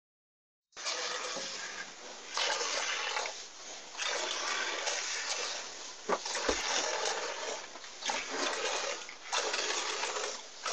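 A cow being milked by hand: milk squirting in streams into a pail, in uneven surges of splashing. There is a light knock about six seconds in.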